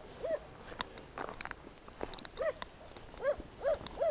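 A dog barking in short yaps: one, then after a pause of about two seconds a few more in quick succession.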